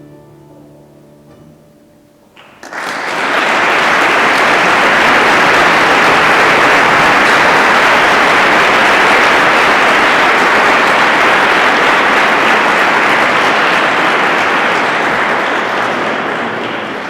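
The last chord of the church's pipe organ dies away, then about two and a half seconds in the audience breaks into loud applause, which holds steady and begins to fade near the end.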